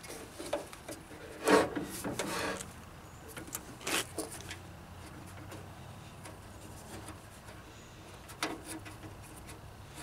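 Handling noise from working the latch rods, clips and a threaded shoestring inside a Jeep Wrangler YJ half door: a few short rubbing scrapes and light knocks, the loudest about one and a half seconds in, quieter between.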